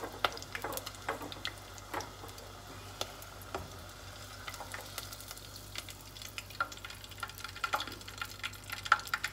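Hot oil sizzling and crackling around a rolled tortilla (flauta) deep-frying in a small pot, with many short pops that grow denser near the end. Metal tongs click against the pot as the flauta is turned and lifted out.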